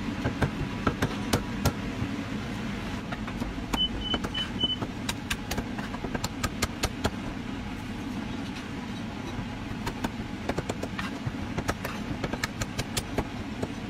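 A steel cleaver chopping roast duck on a wooden chopping block: irregular sharp chops of the blade striking through the meat into the wood, over a steady low background hum. Four short high beeps sound about four seconds in.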